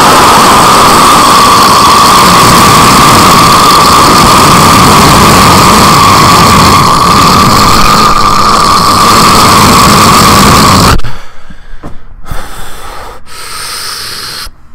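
A man's voice imitating a nuclear explosion into the microphone: a loud, distorted, rushing roar held for about eleven seconds, then falling away into quieter, broken gusts near the end.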